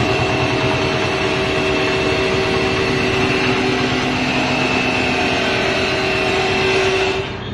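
Dual-head automatic riveting machine running steadily with a mechanical whine, dropping off sharply near the end.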